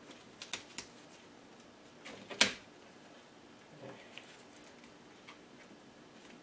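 Light clicks and taps from handling plastic parts and tape, with one loud sharp snap about two and a half seconds in.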